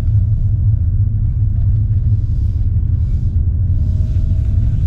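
Car driving slowly on a snowy, icy road, heard from inside the cabin: a steady low rumble of engine and tyres.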